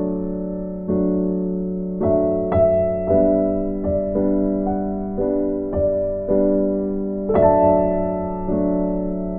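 Background piano music: slow, gentle notes and chords, each struck and left to ring and fade before the next.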